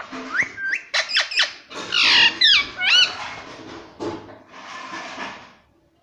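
Indian ringneck parakeet vocalizing: a fast run of sharp rising whistles and short chirps, then harsher raspy, squawk-like sounds that die away just before the end.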